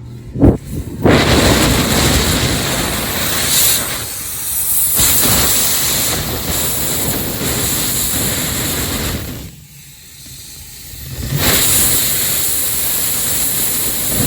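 TOTO Clean Dry TYC411WR high-speed hand dryer blowing loudly, with a steady high whine over the rush of air. A sharp knock comes just before it starts. It cuts out about nine and a half seconds in and starts again about two seconds later, as the sensor loses and finds the hands.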